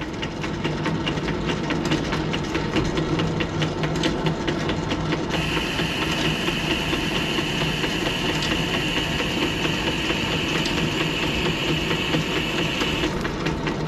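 Wade 8A manual lathe running under power feed with the half nut engaged, the carriage driving a threading tool along; about five seconds in a steady higher-pitched hiss joins as the insert starts cutting the internal thread. The hiss stops shortly before the end, the sound change that shows the tool has finished its cut.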